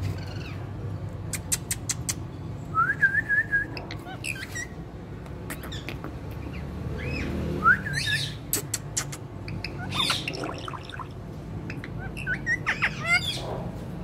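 Indian ringneck parakeet giving short squawks and chirps: quick rising and wavering calls in small clusters a second or more apart, over a steady low background rumble.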